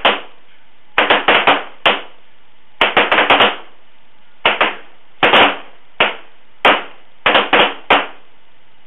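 A line of shooters firing .45 ACP 1911 and 9mm M9 service pistols in a timed string: about two dozen sharp shots in irregular clusters, several almost on top of one another, stopping about eight seconds in.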